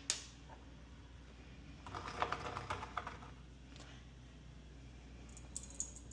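Light clicks and taps from a mortar and pestle holding ground black pepper: one sharp click at the start, a cluster of quick taps about two seconds in, and a few scattered clicks after.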